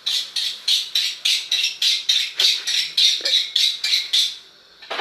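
A parrot squawking in a fast run of short, shrill calls, about four a second, stopping about four and a half seconds in.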